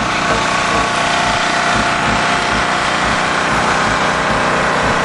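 T-Rex 600 radio-controlled helicopter running steadily: an even, loud mechanical whine from its drive and spinning rotor blades.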